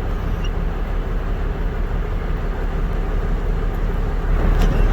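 Dually pickup truck's engine running steadily, a low rumble under an even hiss.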